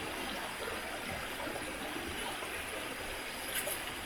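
Steady rush of running river water.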